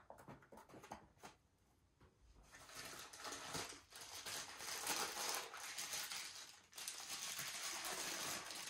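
A few light rustles and taps, then from about two and a half seconds in a clear plastic bag holding a cable crinkling steadily as it is handled and opened.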